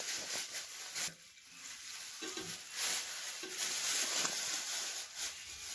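Paper wrapper around a chicken shawarma rustling and crinkling as it is peeled back and handled, with scattered small crackles.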